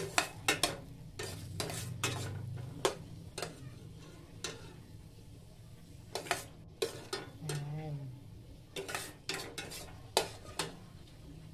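A metal spoon stirring in a stainless steel pot, scraping and knocking against the sides and bottom in irregular strokes, some with a short metallic ring. Under it, a light sizzle of tomatoes, onion and chilli sautéing in oil.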